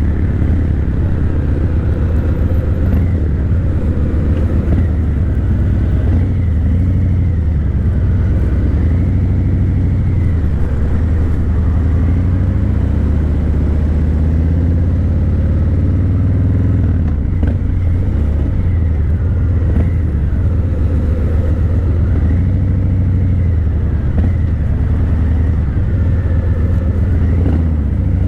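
Harley-Davidson Breakout 117's Milwaukee-Eight 117 V-twin running through Vance & Hines Eliminator 300 slip-on mufflers while cruising. A loud, steady low rumble, with engine speed easing up and down.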